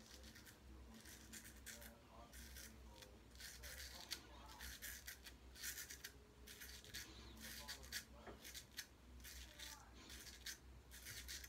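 George Butler 6/8 Sheffield straight razor scraping through lathered stubble on the neck and chin in a quick run of short strokes, each a faint, crisp rasp, over a steady low hum.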